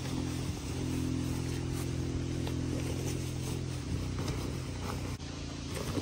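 A motor running at a steady speed with a low hum, its tone breaking and turning less even about four seconds in.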